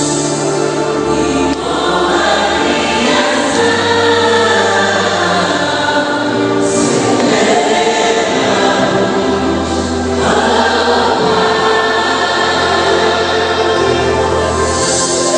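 Church worship singing: many voices singing a gospel song together over an instrumental backing of long held bass notes.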